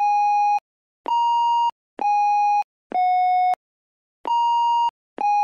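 Sound-effect tones of the memory-puzzle stones: steady electronic beeps, each about half a second long, at three pitches stepping down. A single beep is followed by a falling three-note run, a pause, and then the run starting again.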